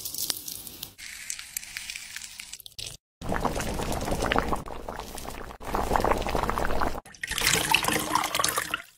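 Mandarin orange segments and liquid being poured, heard in short separate cuts: wet pieces tipped into a shallow pan of liquid, then poured with their liquid from the pan into an enamel pot, splashing and dripping.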